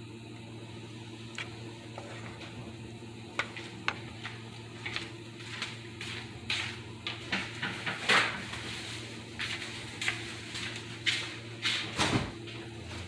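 A spoon stirring thick cheese sauce in a skillet, scraping and knocking against the pan in short strokes that come faster and louder in the second half, over a steady low hum.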